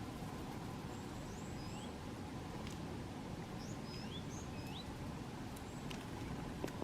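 Small songbirds giving short, high chirps now and then over a steady low rumble of background noise.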